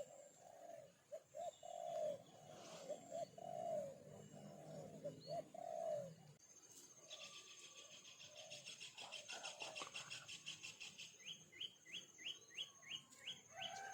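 Birdsong: a dove coos in a run of short, arched, low notes for the first half, then a small songbird gives a fast, buzzy, high trill followed by a string of about eight quick rising whistled notes.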